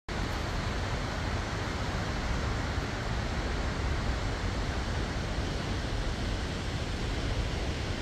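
Steady roar of falling water from Skógafoss, a large waterfall, with wind rumbling on the microphone.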